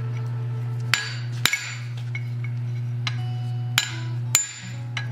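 Four sharp hammer strikes on steel at the anvil, each ringing briefly, falling in two pairs about half a second apart, over a steady low hum.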